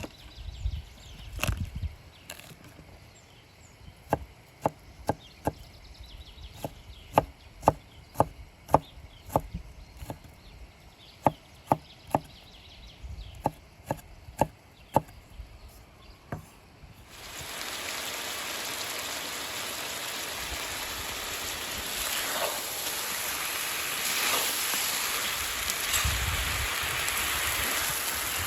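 Knife chopping on a wooden cutting board: sharp, separate strokes at an uneven pace for about the first half. Then it cuts abruptly to a steady loud sizzle of food frying in a cauldron.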